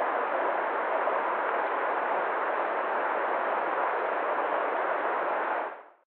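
Shallow stream running over rocks and small riffles: a steady rushing of water, fading out in the last half second.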